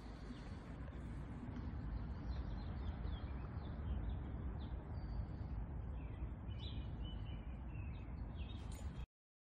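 Outdoor background: a steady low rumble with faint, scattered bird chirps, cutting off abruptly near the end.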